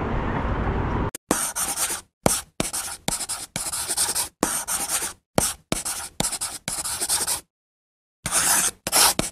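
Chalk scratching on a chalkboard as words are written out: a run of short, separate scratchy strokes with a pause of under a second near the end. The first second holds a steady outdoor rumble before the strokes begin.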